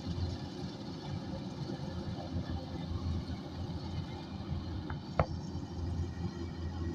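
Kubota DC105X combine harvester running steadily while harvesting rice, a low continuous rumble, with one sharp click about five seconds in.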